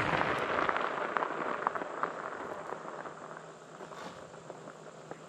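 Two Onewheel XR boards rolling over a gravel-and-grass trail, a rushing tyre noise with small crackles of gravel that fades steadily as the boards move away.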